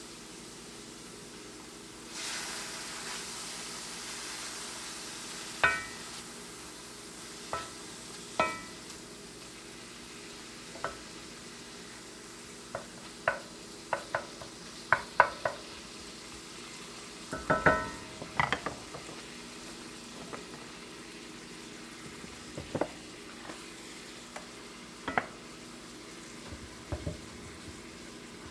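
Food frying in a hot cast iron skillet, a steady sizzle that gets louder about two seconds in. A utensil stirs the food and clinks and taps against the pan many times, some strikes ringing briefly.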